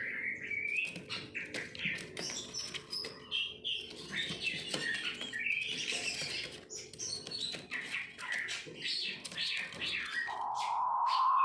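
King quails calling: many short, varied chirps and whistles. About ten seconds in, one long, even, hoarse note begins.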